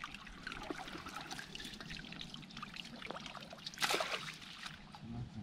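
Water trickling and splashing as hands work a bamboo fish trap in shallow water, with a louder splash about four seconds in.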